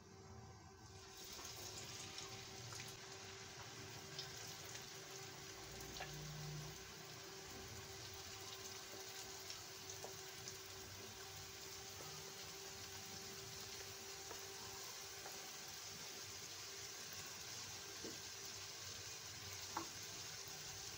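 Potato strips for French fries deep-frying in hot oil: a steady sizzle that starts about a second in, with a few sharp pops.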